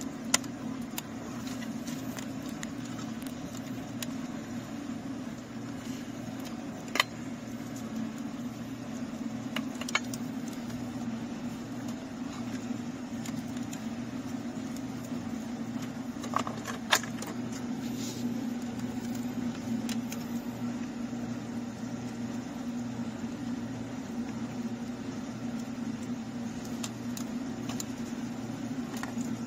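Plastic wiring-harness connectors rattling and clicking as they are handled and plugged together. A handful of sharp clicks are scattered over a steady low hum.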